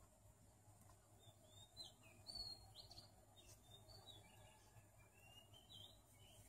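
Faint bird chirping: a run of short, high chirps and whistled notes, some sliding up or down in pitch, beginning about a second in.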